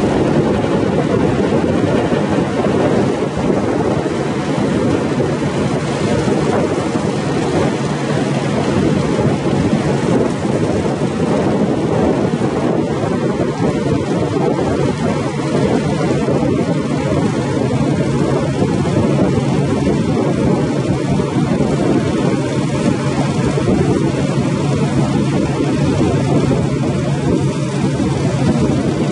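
Steady rumbling drone of an icebreaking tug under way through sea ice: engine noise and the hull pushing through the ice, with a constant low hum underneath.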